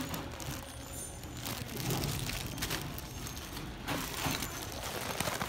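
Clear plastic bags around dolls crinkling as a hand pushes through them on the hooks, in several short bursts.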